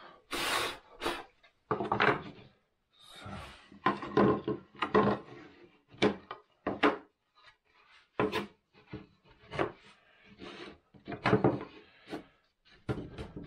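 Wooden boards being handled and rubbed against each other: a string of short, irregular scrapes and knocks about a second apart.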